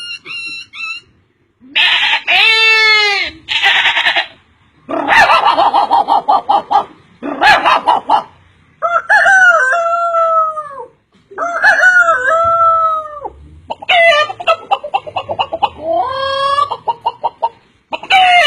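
A man's voice imitating chickens: a string of separate crowing and clucking calls with short gaps between them, some falling in pitch.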